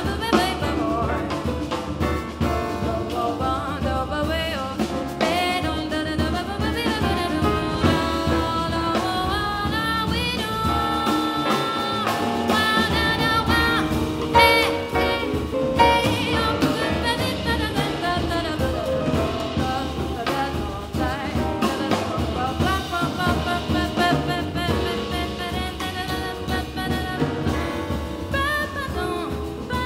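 Live jazz: a woman sings over a small band that includes guitar and double bass.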